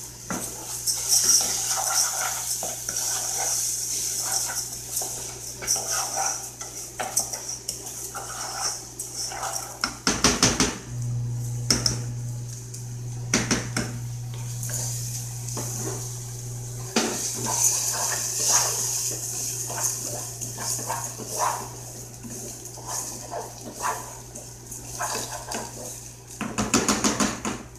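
A silicone spatula stirring and scraping raw rice grains as they fry in oil in metal cooking pots, with a steady rattle of grains. Short knocks of the spatula against the pots come in a few quick clusters.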